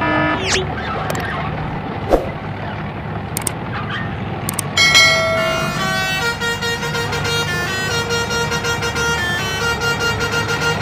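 A steady truck engine rumble with a few clicks. From about five seconds in, a Basuri 'telolet' multi-tone horn joins it, playing a tune of held notes that step up and down in pitch.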